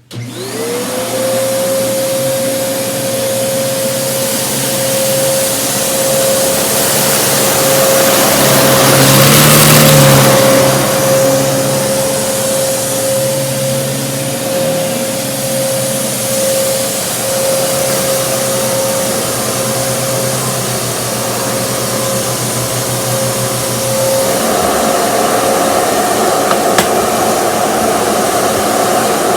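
Kenmore Progressive upright vacuum switched on, its motor spinning up within about a second to a steady whine and running. It gets louder around ten seconds in, and the sound shifts to a higher tone about 24 seconds in.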